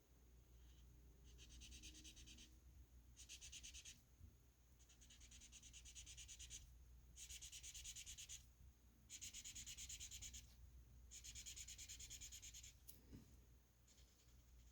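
Felt-tip marker scratching on paper in rapid back-and-forth strokes, colouring in stripes. It comes in seven short spells of about a second or so each, with brief pauses between, and a single click near the end.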